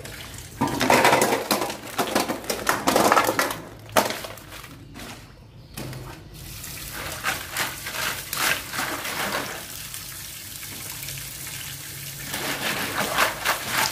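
Tap water running over a colander of oysters while hands rub and turn them, the rough shells clattering and scraping against each other, with a few sharp knocks partway through.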